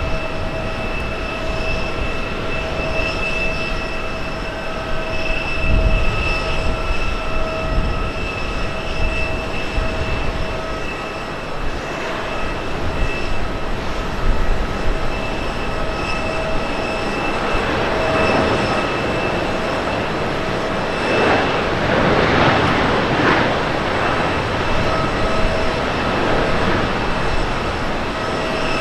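Boeing 737-800's CFM56 jet engines running through landing and rollout: a steady rush with a high whine. A louder swell of engine noise builds about two-thirds of the way in and lasts several seconds.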